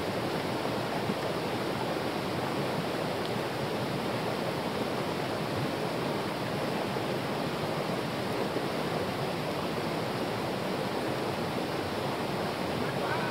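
Steady noise of a shallow, rocky mountain stream flowing.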